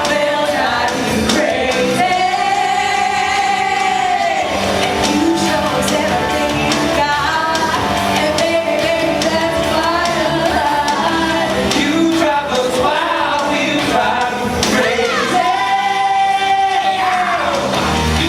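Music with singing over a backing band; the voice holds a long, wavering note twice, once a couple of seconds in and again near the end.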